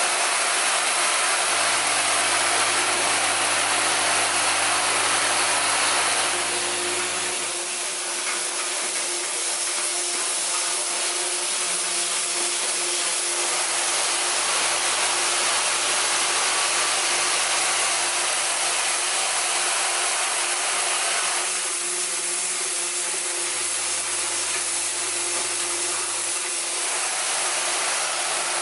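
A screw and washer assembly machine running steadily with a continuous mechanical whir and hiss. A low hum comes and goes several times underneath.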